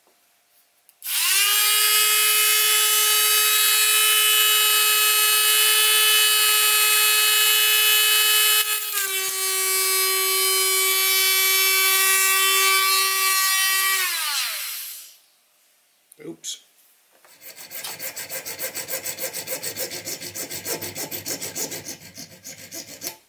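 Dremel-type rotary multitool running at high speed on a 3/32-inch brass rod, a steady high-pitched whine whose pitch drops slightly partway through before the motor winds down and stops. After a click, a junior hacksaw cuts the thin brass rod with quick rasping strokes, about three or four a second.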